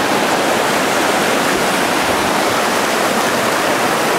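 Loud, steady rush of whitewater rapids on a mountain river, a fourth-category rapid where the current pours against a rock face.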